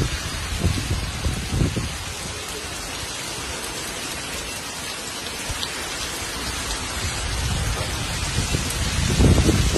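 Heavy rain pouring steadily, with louder low rumbles in the first couple of seconds and again near the end.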